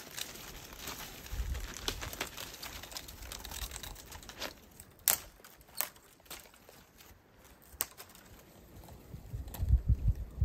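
Dry bark and dead twigs being torn and snapped off by hand for tinder and kindling: a crinkling, tearing sound with a few sharp snaps through the middle, and low thumps near the end.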